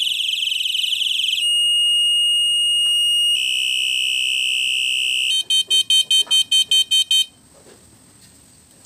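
Electronic bicycle horn built into a handlebar headlight, cycling through its preset tones: a fast warbling siren, then a steady high beep, a louder steady tone, and a run of rapid beeps about five a second that stops a little over seven seconds in.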